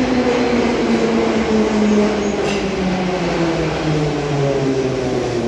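Metro train pulling into the station: its traction motors whine in a steady tone that falls in pitch as the train brakes, over the rumble of the wheels.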